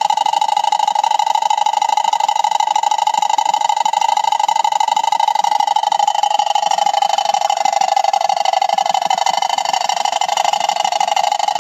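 Homemade tin-can water wheel spun by water pouring from a pipe: a steady, fast mechanical buzzing rattle from the spinning wheel and axle, over the splash of the falling water.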